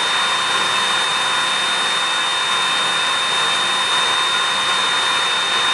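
Snapmaker CNC carving module's spindle motor running, a steady noise with a constant high whine and no change in speed.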